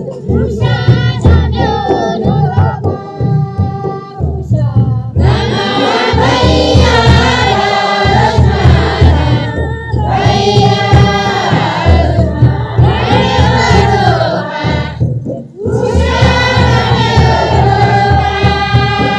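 Traditional Kinnauri song: voices singing in phrases over a steady low beat. The singing is lighter at first and grows fuller about five seconds in.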